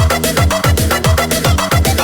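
Loud electronic dance remix of the Indonesian DJ dugem kind, with full bass: a fast steady kick drum, each kick a deep bass thump falling in pitch, about four a second, under hi-hats and synth.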